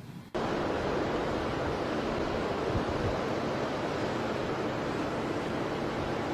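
Steady rushing noise of wind and sea surf outdoors, starting abruptly just after the start.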